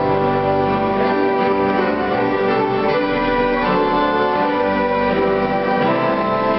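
Church organ playing the postlude in full sustained chords that change every second or so.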